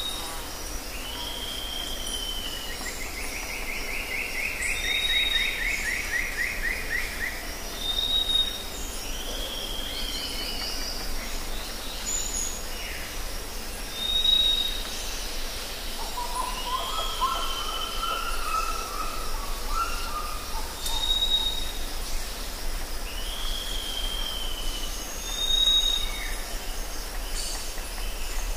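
Forest ambience with several birds calling over a steady hiss. A short high whistle repeats about every three seconds, alongside slurred falling calls. A longer trilled call comes a few seconds in, and a lower pulsed call comes just past the middle.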